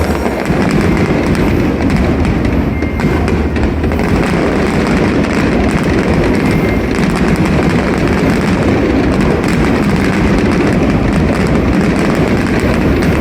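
Fireworks going off in a dense, continuous barrage: many overlapping bursts and crackles blend into a steady rumble, with no single bang standing out.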